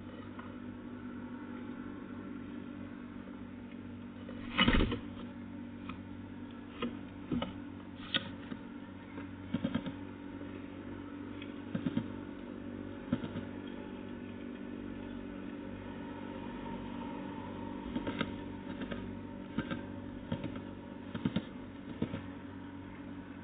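A steady low mechanical hum with scattered short taps and knocks over it, the loudest knock about five seconds in.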